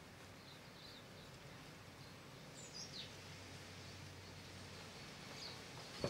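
Faint, high chirps of silvereyes at a feeder: a few short calls, with one falling call about three seconds in, over a steady low hum.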